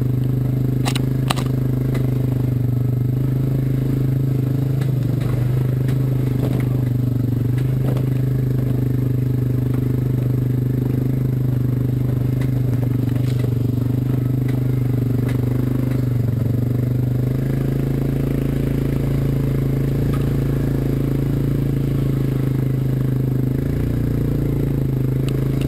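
ATV engine running at a steady, even pitch while towing at low speed, with a few sharp knocks and rattles from the machines on the rough trail. The engine note shifts slightly about two-thirds of the way through.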